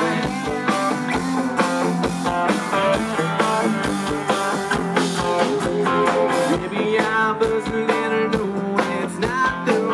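Live country rock band playing, with electric and acoustic guitars over bass and drums.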